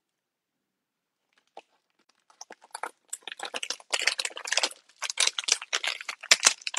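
Clear plastic photo sleeve crinkling and rustling as a print is worked into it. It starts about two seconds in and gets louder.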